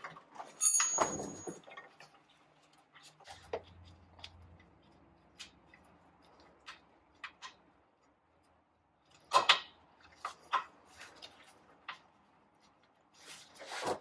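Scattered clicks and knocks of hand tools and metal parts being handled while a bolt is worked into place on a power steering line fitting. The sharpest knock comes about nine seconds in, followed by a few lighter clicks.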